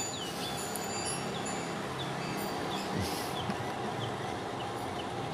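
Quiet workbench with steady room noise and faint handling noise as a fan-motor rotor and grease pot are handled. Faint short chirps recur in the background.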